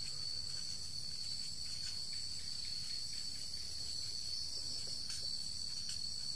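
Insects chirping steadily in a continuous high-pitched ring, like a night-time cricket chorus.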